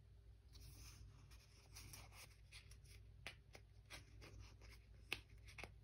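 Faint rustling and light, irregular ticks of a paper page and a sticker sheet being handled as stickers are placed in a journal.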